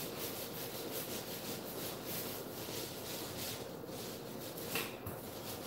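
Black screen paint being spread on a wall, a steady rubbing in quick repeated strokes of the applicator.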